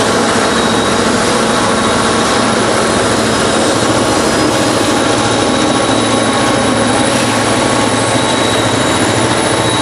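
Diesel locomotives of a passenger train passing close by on a curve: a loud, steady engine drone that holds level throughout, with the rumble of the consist on the rails.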